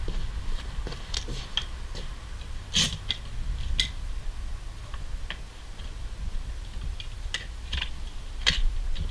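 Irregular metallic clicks and knocks from a collapsed aluminium telescoping ladder being handled and fitted against a rooftop tent's mount. The loudest knock comes a little under three seconds in.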